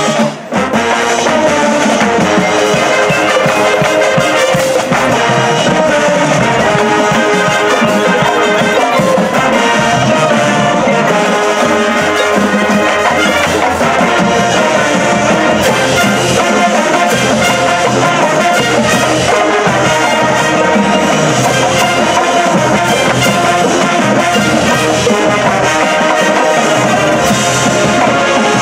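Marching band playing a halftime show, the brass section carrying full sustained chords, with a brief cutoff about half a second in before the band comes back in.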